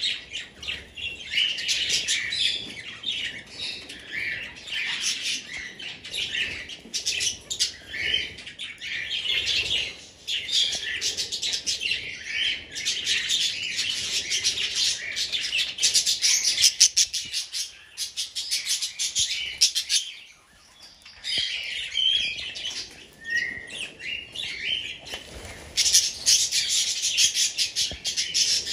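A flock of budgerigars chattering and chirping in a dense, continuous warble, with a short lull about two-thirds of the way through.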